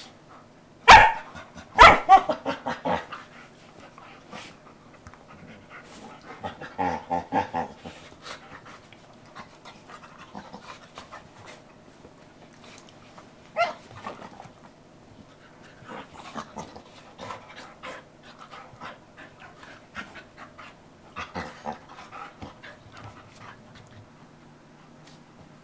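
Two dogs, a Brittany Spaniel/cattle dog mix and a German Shepherd, play-fighting: two loud barks about a second apart near the start, then panting with scattered quieter bursts and snaps through the tussle.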